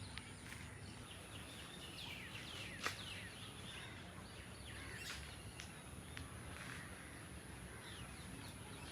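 Faint outdoor ambience with scattered short, falling chirps of small birds and one sharp click a little under three seconds in, over a thin steady high tone.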